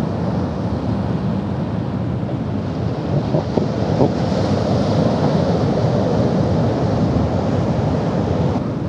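Wind buffeting the microphone over steady surf washing against the rocks, with two brief knocks about three and a half and four seconds in.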